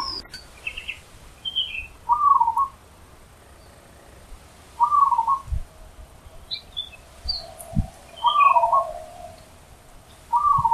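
Zebra dove cooing: a short patterned phrase repeated four times, about every three seconds. Other small birds chirp higher in between.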